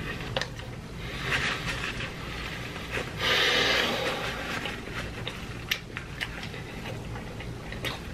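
Close-miked chewing of a mouthful of chili cheese dog, with wet clicks and smacks of the mouth scattered throughout. About three seconds in comes a louder hiss-like rush lasting about a second.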